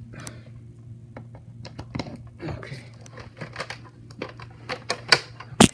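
Handling noise as a power cord is brought to a wall outlet: rustling and scattered light clicks, with one sharp, loud click near the end.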